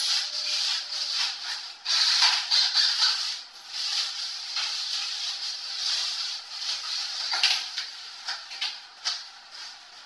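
Cardboard and plastic packaging being handled, rustling, scraping and crackling in irregular bursts; it is louder in the first few seconds and fainter near the end.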